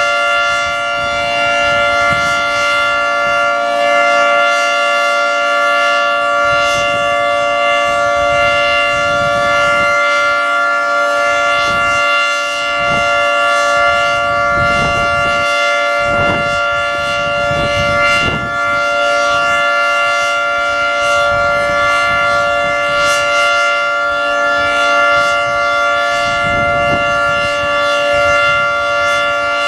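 Federal Signal 3T22 outdoor warning siren sounding a loud, steady chord of several tones held at constant pitch during a routine test.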